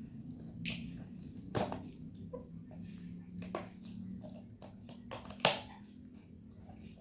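Scattered sharp clicks and taps of hands handling toys and their packaging, the loudest about five and a half seconds in, over a faint steady low hum.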